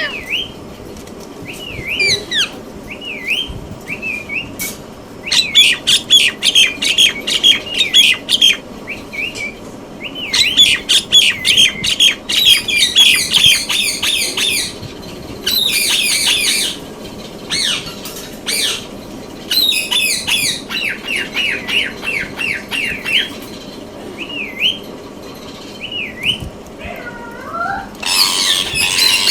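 Indian ringneck parakeet calling: single high chirps and rapid chattering runs of calls lasting a few seconds each, with a louder burst of squawks near the end.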